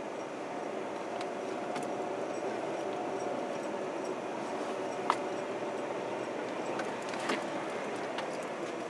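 Vehicle running slowly along a dirt track, heard from inside the cab: a steady engine hum with tyre and road noise. A sharp click about five seconds in and a softer one about two seconds later stand out.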